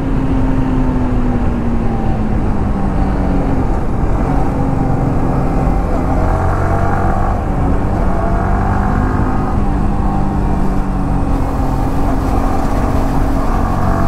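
Sport motorcycle's engine running at cruising speed under the rider, its note sagging slightly early on and climbing again near the end as the throttle changes.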